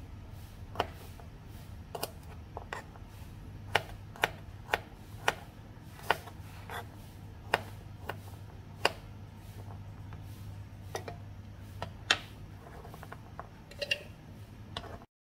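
Knife chopping shallots and garlic on a plastic cutting board: single sharp knocks at an uneven pace, roughly one a second, over a low steady hum.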